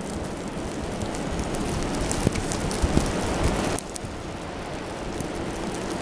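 Blizzard wind blowing across the microphone with a steady hiss of wind-driven snow, and many small ticks of snowflakes striking the camera. The hiss briefly eases about four seconds in.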